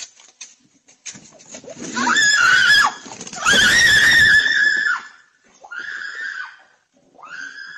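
A woman screaming in fright: four long, high-pitched screams, the first two loudest and longest, the last two shorter and quieter.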